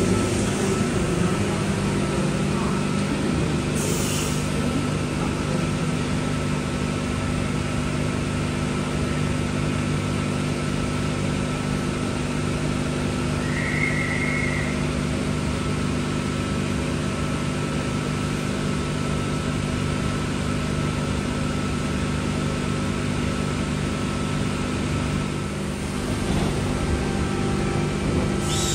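Electric passenger train humming steadily at a station, its equipment holding several steady tones over a haze of background noise. A brief high beep comes about halfway through, and a short falling squeal comes at the very end.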